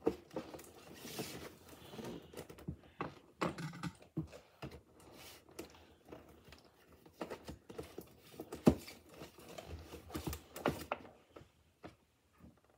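A boxed toy figure's cardboard and plastic packaging being handled and cut with scissors: an irregular run of clicks, taps and rustles, with one sharp click about nine seconds in.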